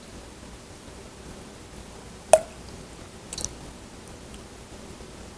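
Vanilla extract being poured from a glass bottle into a metal measuring spoon: mostly quiet, with one sharp clink of the spoon against glass a little over two seconds in and a faint drip about a second later.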